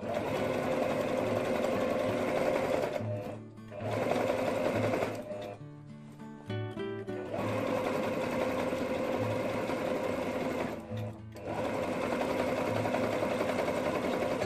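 Domestic electric sewing machine running in bursts, zigzag-stitching a seam that joins patchwork leather pieces, with three short stops along the way.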